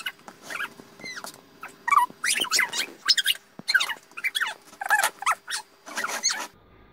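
Scissors snipping through plastic wrapping: a dozen or so sharp cuts about half a second apart, many with a short squeak as the blades bite the plastic.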